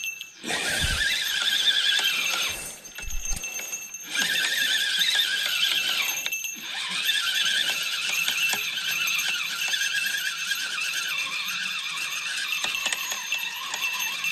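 Spinning reel on a feeder rod being cranked steadily to reel in a hooked fish, with two low handling bumps in the first few seconds.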